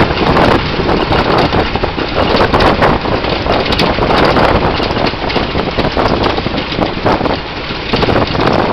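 A 1927 Ford Model T's four-cylinder engine running as the open car drives along a gravel road, mixed with the crunch of tyres on gravel and wind noise on the microphone in a steady, loud rumble.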